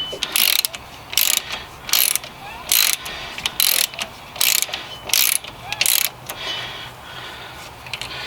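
Ratchet wrench clicking in a string of short bursts, one per back-swing of the handle, a little under a second apart, as a hub assembly mounting bolt is backed out after being broken loose with a breaker bar. The strokes fade out after about six seconds.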